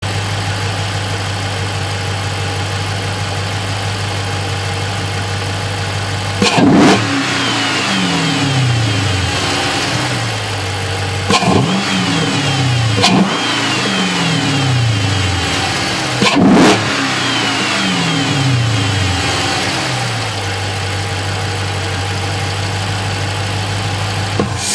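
Dodge Charger SRT8's Hemi V8, heard up close at its open cone air filter, idling steadily, then revved four times in the middle stretch. Each rev jumps up sharply and falls back over a couple of seconds before the engine settles back to idle.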